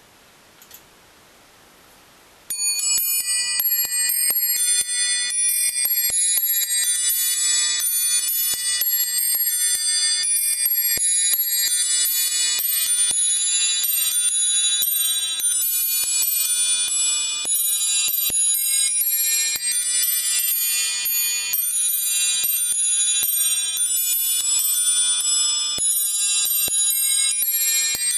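Antique musical clock playing a melody on its nest of small bells, struck by a row of hammers driven by a pinned barrel. The tune starts about two and a half seconds in and runs as a quick, continuous peal of high, overlapping bell notes.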